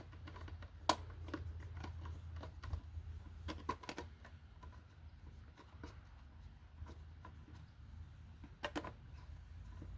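Scattered light clicks and taps of parts being handled as the air-filter cover is put back on a small Briggs & Stratton engine, with a sharp click about a second in and a quick pair near the end, over a low steady hum.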